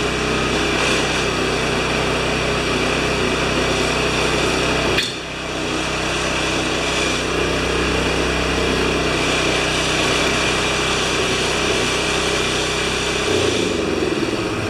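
Toro Power Clear 621 QZR snow thrower's single-cylinder four-stroke engine running steadily, now that its carburetor has been cleaned of stale-fuel gum. Its note dips briefly about five seconds in, and near the end the low hum changes as the speed drops.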